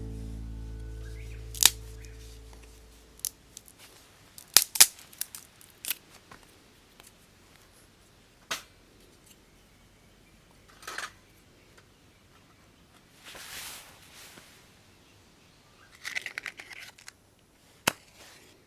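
Background music fading out, then scattered sharp snaps and clicks of small dry wood, with a short hiss about two-thirds of the way through.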